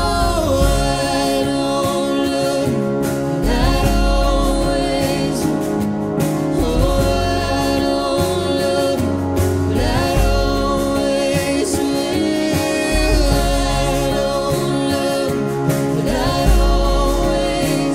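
A song: a voice singing long, wavering held notes over instrumental backing with a deep bass.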